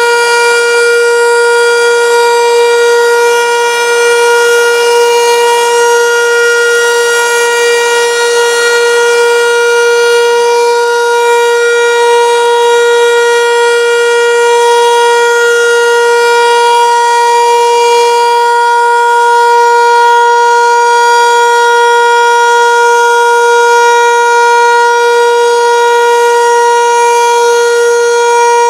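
Landert MSL-6 motor siren holding one steady, unwavering tone: the Austrian civil-defence 'Warnung' (warning) signal, a continuous tone that lasts three minutes.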